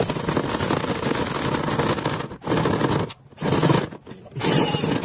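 Loud, dense rattling and scraping from dryer vent cleaning equipment working lint through a duct, cutting out briefly three times.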